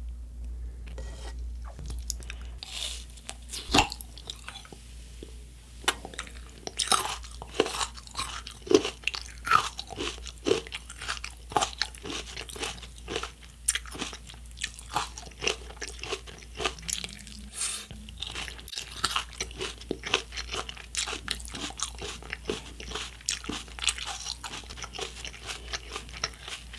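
Close-up crunching and chewing of firm white coconut flesh, with many short irregular crunches, several a second, starting a couple of seconds in.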